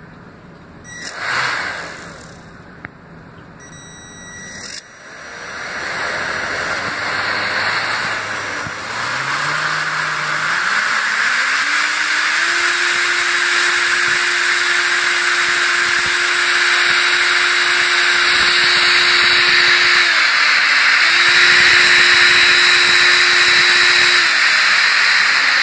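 Homemade electric ducted fan, doubled computer-fan blades driven by a brushed 12T motor from a Traxxas Bandit, run up from a servo tester. After a brief rise and fall about a second in and a click, the motor whine climbs in steps to a steady high pitch over a rushing air hiss, dips for a moment, picks up again, and starts to fall near the end.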